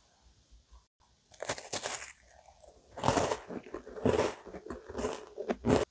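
Close-miked bites and crunching of a chocolate-coated digestive biscuit: a run of crisp crunches starting about a second and a half in, with further bites about three, four and five seconds in.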